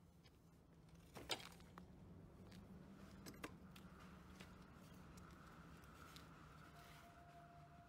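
Near silence: a faint steady low hum with a few light clicks and taps, the sharpest about a second in.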